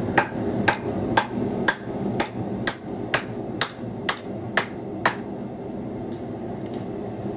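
Hot steel sword blade being struck with a wooden table leg to bend in a back curve: about eleven sharp, evenly spaced blows, two a second, that stop about five seconds in, then two fainter knocks. A steady low rumble sits underneath.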